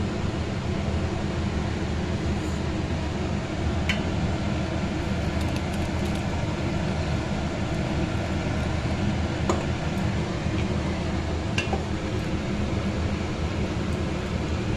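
Steady kitchen machine hum with a low drone and hiss. A few light clinks sound as a glass mixer jar of ground rice is tipped against an aluminium pot of milk.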